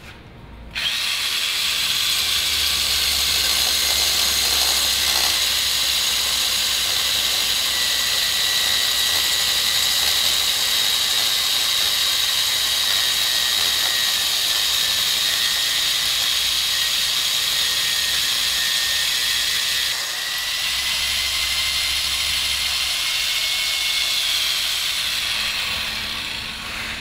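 Power drill spinning a dry diamond core bit as it cuts dry through a concrete block: a steady high-pitched whine over a grinding hiss. It starts about a second in, dips briefly about two-thirds of the way through, and fades out near the end.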